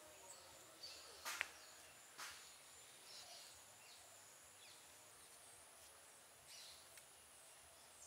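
Near silence with faint rural outdoor ambience: a steady high insect hum, a few faint bird chirps, and a couple of soft clicks, the clearest about a second and a half in.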